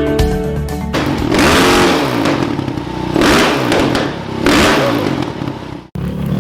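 Music stops about a second in and gives way to an off-road trail motorcycle's engine revving in three or four throttle swells, rising and falling. Near the end the sound cuts out for an instant and another motorcycle engine picks up.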